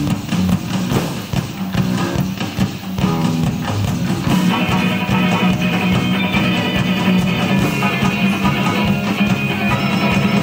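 Rock music with guitar, played without speech over it; the band's sound grows fuller and brighter about four seconds in.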